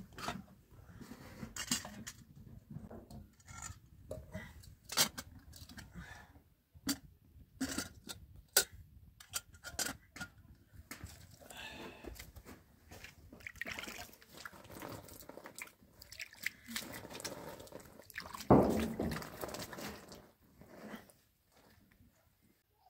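Metal kettles and lids clinking and knocking on a makeshift block stove, with water splashing and pouring between them. A louder rustle and knock come about three-quarters of the way through.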